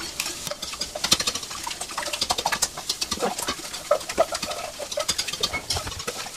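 Wire whisk beating eggs and milk in a plastic bowl: rapid, rhythmic clicking and scraping of the wires against the bowl.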